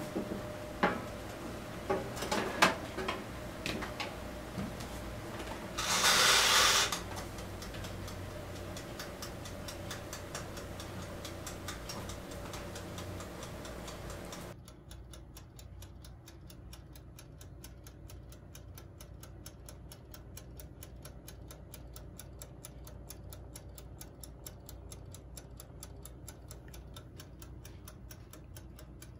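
A glass baking dish knocks against the rack of an Iris Ohyama toaster oven as it is slid in, and a loud burst of noise lasting about a second comes about six seconds in. After that the oven's mechanical dial timer ticks steadily and evenly while the dish bakes.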